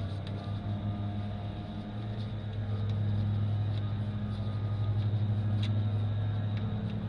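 Automatic transmission fluid pouring out of the Allison 1000 pan's drain hole into a drain pan, over a steady low hum; the sound grows louder about three seconds in.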